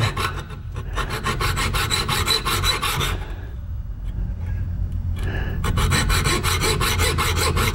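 Hacksaw cutting through spring steel bar stock clamped in a vise: a steady rhythm of rasping back-and-forth strokes. The strokes ease off about three seconds in and pick up again strongly about five seconds in.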